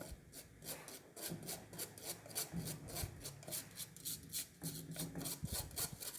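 Dry cake ingredients, flour and cocoa powder, being sifted through a mesh sieve: a rhythmic rasping shake, about three to four strokes a second.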